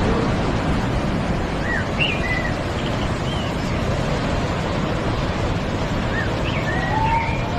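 Waterfall rushing steadily, a dense even roar of falling water, with a few short high chirps about two seconds in and again near the end.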